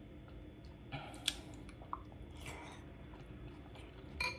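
A person chewing a mouthful of food close to a clip-on microphone, with a few soft, wet mouth clicks about a second in and again near the end.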